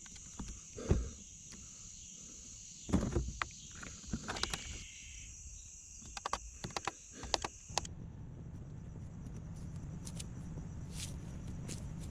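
Scattered knocks and rustles of someone moving about and handling gear, over a steady high-pitched insect drone. The drone cuts off abruptly about eight seconds in, leaving a steady low rumble.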